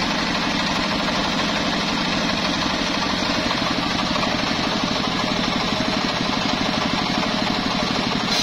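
Large sawmill circular saw ripping lengthwise through an old johar log, the blade cutting steadily under its running drive motor. The motor gives a fast, even pulse beneath the noise of the cut.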